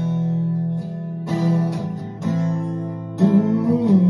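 Acoustic guitar strumming chords, a new strum about once a second, with the chords ringing between strums.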